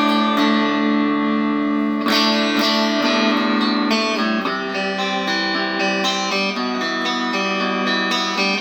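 1985 Made-in-Japan Fender Performer electric guitar on its bridge pickup in single-coil mode, played through a Peavey Valve King Royal 8 valve amp with no effects or pedals. Chords are strummed and left to ring, with a new chord about every second or two.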